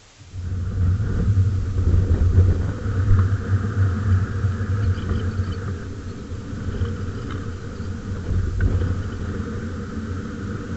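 Honda XR250 Tornado's single-cylinder engine running with a steady low rumble that comes in abruptly just after the start, a little louder in the first half.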